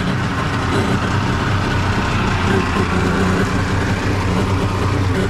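1998 Kawasaki ZXi 1100 jet ski's three-cylinder two-stroke engine idling steadily out of the water, running again after being sunk and hydrolocked.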